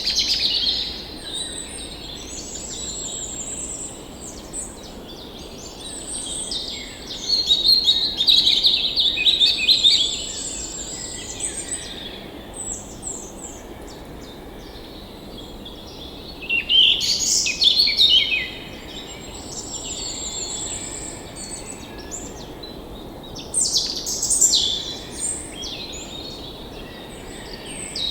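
Several songbirds chirping and trilling in repeated bursts, some calls high and rapid, over a steady background hiss.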